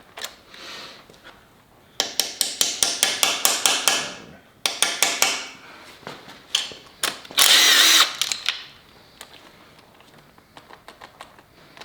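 Ratchet wrench clicking in quick runs as bolts are worked out of the front of a Ford 5.4L V8 during teardown, with a short, loud burst of steady noise from a power tool near the middle and a few scattered clicks and taps afterwards.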